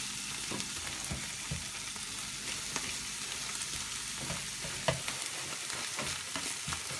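Scrambled eggs and yellowfoot mushrooms (camagrocs) sizzling in a frying pan. A wooden spatula stirs them, scraping and knocking against the pan now and then, with the loudest knock about five seconds in.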